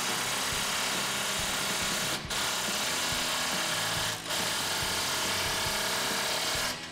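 Cordless impact wrench running on the nut of an exhaust band clamp, tightening the clamp that joins the stainless axle-back tailpipe section to the factory pipe. It runs in three steady stretches with short breaks about two and four seconds in, and stops just before the end.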